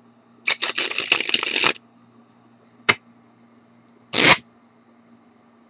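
A deck of playing cards sprung from one hand to the other in a flying wave flourish: a rapid stream of card flicks for about a second. Then a single sharp click about three seconds in, and a short louder rustling burst a second later as the cards are handled again.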